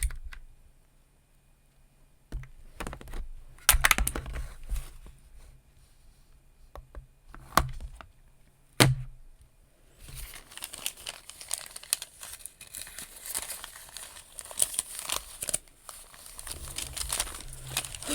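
Paper being handled and crinkled close to the microphone. There are a few separate rustles and knocks at first, then several seconds of continuous crinkling from about halfway through.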